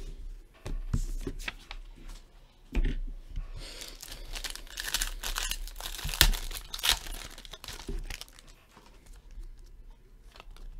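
A hockey card pack's wrapper being torn open and crinkled, after a few light handling clicks and a knock. The tearing and crinkling is densest in the middle, with one sharp rip about six seconds in, then trails off into faint rustling.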